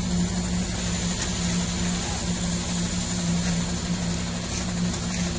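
Slipform concrete paver running: a steady low machinery hum from its engine and working gear while it lays the concrete slab.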